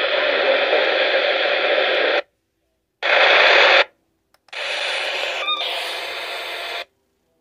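Radio static hiss from a weather radio receiver, switching in and out abruptly: a couple of seconds of hiss, a short louder burst, then a couple more seconds before it cuts off.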